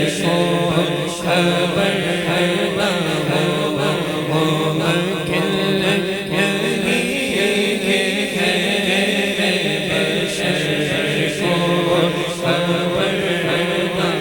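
Devotional vocal chanting from a naat: voices carry a sustained, wavering melody without a break, in an interlude between the sung lines of the poem.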